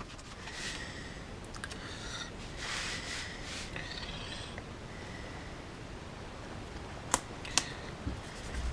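Faint rustling as a plastic-wrapped battery pack, a roll of tape and a sticker label are handled on a workbench, with two sharp clicks about half a second apart a little after seven seconds.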